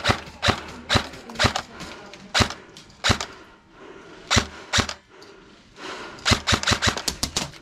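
Airsoft guns firing: single shots about every half second, then a quick run of rapid shots near the end.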